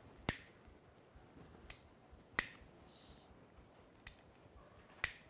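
Five sharp, isolated clicks at irregular intervals, with faint room hiss between them; the loudest come right at the start, about two and a half seconds in, and near the end.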